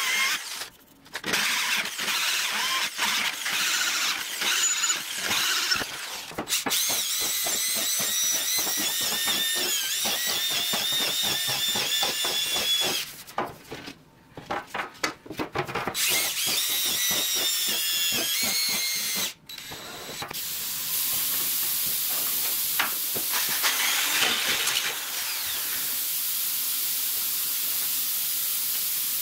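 Cordless drill boring holes through aluminum sheet, the bit squealing with a high, wavering pitch in several runs broken by short pauses. In the last several seconds this gives way to a steady hiss.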